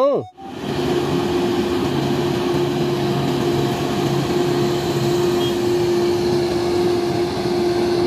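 Grove GMK5300L all-terrain mobile crane driving along a road, its engine giving a steady drone with a constant humming tone. The sound cuts in just after the start.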